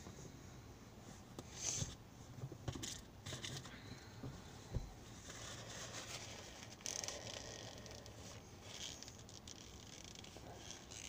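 Faint rustling and crinkling of a paper tissue being pulled out and handled, a few short scattered scrapes with one sharper click about five seconds in.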